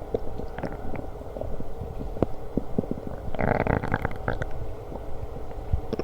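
Human stomach growling and gurgling: a low rumble with scattered small gurgles, and a louder run of gurgling about three and a half seconds in that lasts about a second.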